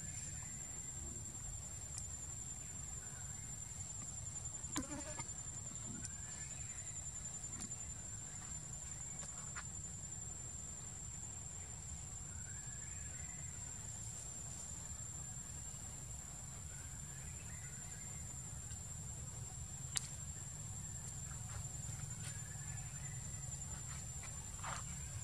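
Steady high-pitched insect drone, held unbroken, over a low rumble of background noise, with faint short chirps and a couple of sharp clicks, one about twenty seconds in.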